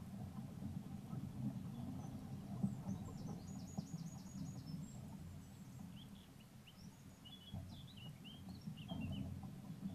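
Woodland songbirds singing: a short, fast trill of repeated high notes about three seconds in, then a run of short, scattered chirps near the end, over a steady low rumble.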